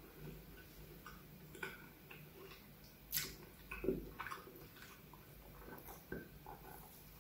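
Close-miked chewing of a soft, sprinkle-topped donut: faint, scattered wet mouth clicks and smacks, with a sharper click about three seconds in and a soft thump just after.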